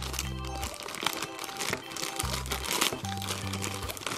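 Thin clear plastic toy bag crinkling and crackling as fingers work it open, over background music with a low bass line.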